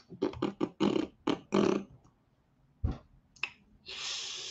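A man coughing into his hand, a quick string of short coughs in the first two seconds and another one or two about three seconds in. A steady hiss starts near the end.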